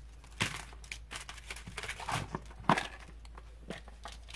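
Handling noises of small phone parts and tools on a repair bench: a few sharp clicks and taps, the loudest about 2.7 seconds in, with light rustling between.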